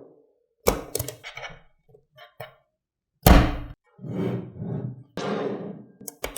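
Handling noises: a few sharp clicks and knocks, then a single loud thunk about three seconds in, followed by a couple of seconds of scraping or rustling.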